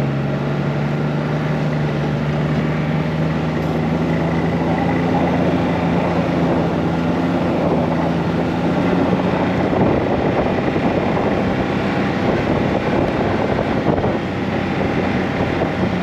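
Snowmobile engine running under way, a steady motor drone whose note edges upward over the first several seconds, then turns rougher and noisier from about halfway through.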